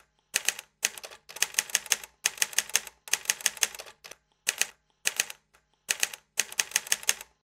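Typewriter sound effect: quick runs of key strikes, several a second, broken by short pauses, that stop just before the end.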